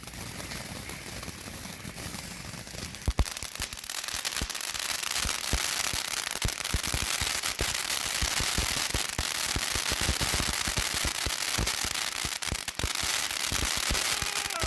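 Centrifuge spinning fountain firework (Fire Factory, 200 g) going off: a steady hiss of spraying sparks, with rapid crackling pops joining about three seconds in and thickening as it spins.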